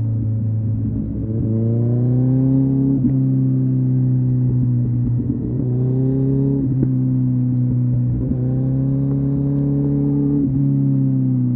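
Kawasaki ZZR1400 (ZX-14R) inline-four engine with a Delkevic exhaust, running under load. Its pitch climbs slowly and then drops back sharply about four times.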